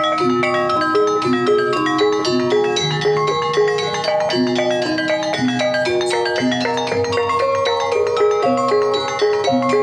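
Javanese gamelan music in Banyumasan tayub style: mallet-struck keyed instruments playing a dense, running melody of ringing notes over a steady beat.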